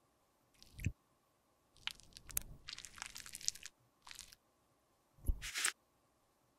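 A metal lipstick tube and a clear plastic lipstick mould being handled and fitted together by fingers in latex finger cots: a few short scrapes and clicks, with a longer crackly rubbing stretch in the middle.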